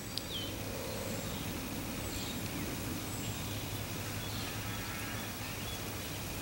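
Outdoor ambience: a steady low hum under a noise bed, with faint bird chirps and whistles now and then.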